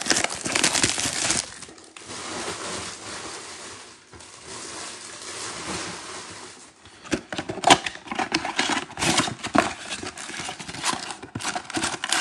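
Plastic shrink wrap crinkling as it is torn and peeled off a cardboard trading-card box. From about seven seconds in come sharper snaps and taps as the cardboard box is handled and its end flap pulled open.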